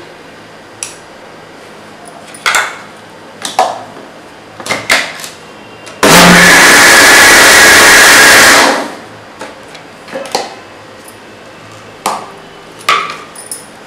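Panasonic electric mixer grinder running in one short burst of about two and a half seconds, starting suddenly and winding down as it is switched off, blending cake batter of eggs, sugar, butter, wheat flour and baking powder in its steel jar. A few short knocks come before and after it.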